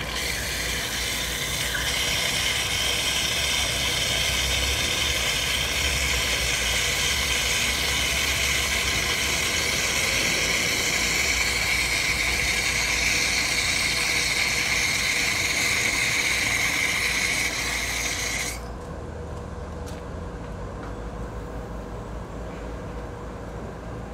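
Water running from an outdoor tap into a metal cooking pot, a steady splashing hiss as the pot fills, which cuts off suddenly about eighteen seconds in.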